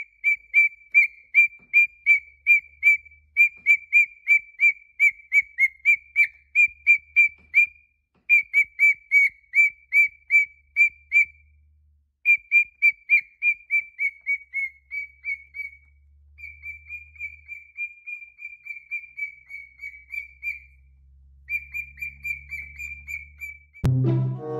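A parrot whistling a long series of short, clear, high notes at one pitch, about three or four a second. The notes come in runs with brief pauses and run together into a faster warble for a few seconds. A sudden loud sound cuts in at the very end.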